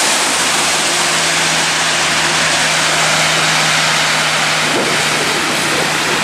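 A Kenworth C508 heavy-haulage prime mover and its multi-axle float trailer drive past on a wet highway, with loud, steady tyre hiss from the wet road over a steady diesel engine hum. A van drives past near the end.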